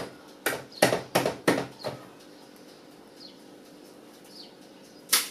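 Four quick knocks of a utensil against a plastic mixing bowl as cookie dough is stirred, then a quiet stretch with a couple of faint high chirps. Near the end comes one sharp crack: an egg being tapped on the bowl to break it.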